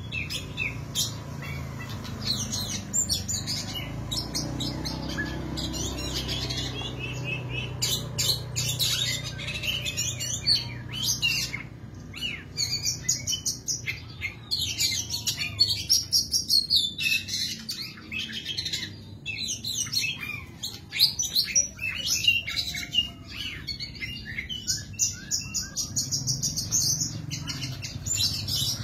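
Oriental magpie-robin (kacer) singing continuously: a long, varied song of rapid whistles and chattering notes, with short pauses between fast runs.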